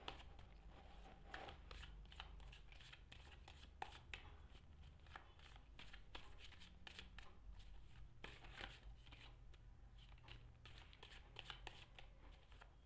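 Osho Zen Tarot cards being shuffled by hand: soft, irregular rustling and light clicks of the cards sliding against each other, over a faint low hum.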